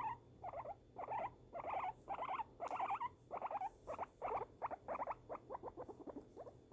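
A guinea pig making a run of short pulsed purring calls, a little over two a second at first and quickening to about four a second in the second half.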